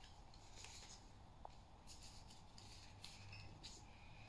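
Near silence with faint, scattered rustles of Pokémon trading cards being gathered up and handled.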